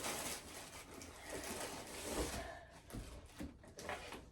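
Rustling and scraping of box packaging and plastic parts being handled, a steady hiss of rubbing for the first couple of seconds, then several light knocks and clicks.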